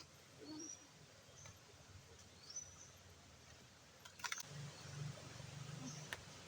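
Faint outdoor quiet with a few short, high bird chirps, one of them rising, and two sharp clicks in the second half.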